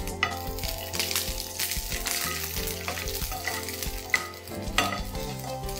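Slit green chillies sizzling in a little hot oil in a nonstick frying pan, stirred with a slotted spatula that taps against the pan a few times.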